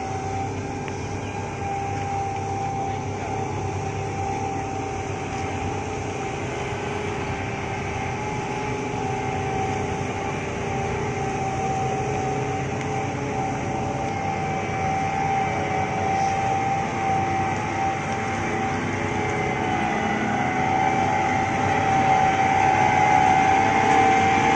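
Preet 987 combine harvester running under way: a steady engine and machinery drone with a high, steady whine over it, growing louder near the end as the machine comes close.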